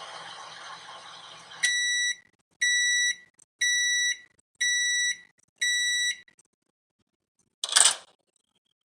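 A microwave oven running with a steady hum. About a second and a half in, the hum stops and five beeps sound, about one a second, signalling the cooking is done. A short sharp noise comes near the end.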